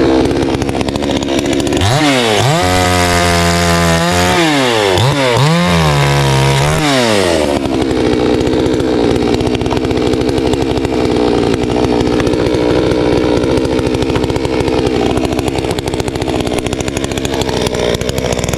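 Garwinner gas chainsaw's engine idling, revved up twice in quick succession between about two and seven seconds in, then settling back to a steady idle.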